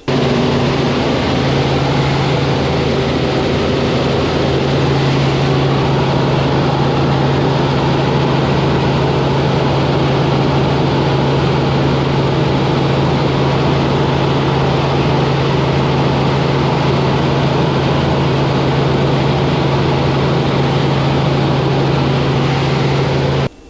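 Helicopter in cruise flight: a loud, steady drone of rotor and engine with a strong low hum. It cuts in suddenly and cuts out suddenly near the end.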